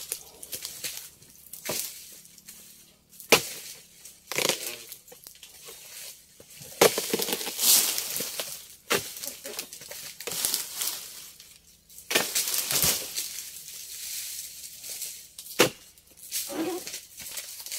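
Oil palm harvesting chisel (dodos) on a pole chopping into the frond bases of an oil palm: irregular sharp crunching strikes, several seconds apart, with rustling and crackling of dry fronds between them.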